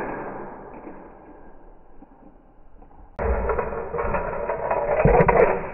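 Toy vehicles being pushed and knocked about on a foam play mat, heard in slowed-down slow-motion audio. After a quieter stretch, a loud, drawn-out scraping clatter starts suddenly about three seconds in, with two heavy thuds.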